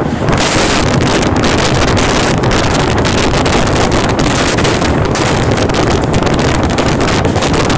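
Loud rushing wind and rail rumble at the open door of a moving EMU local train as a passenger train crosses close alongside on the next track, first the end of its diesel locomotive and then its coaches going past, with rapid clicks and rattles.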